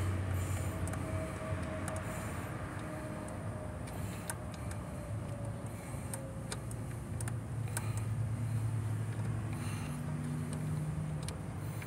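2008 BMW 750Li engine bay with the engine running: a steady low hum, a faint whine slowly dropping in pitch over the first half, and scattered light clicks.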